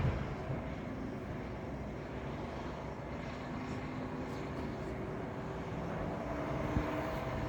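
Steady low rumble of vehicle engines running in the street, with a faint steady engine drone that comes up in the last second or so.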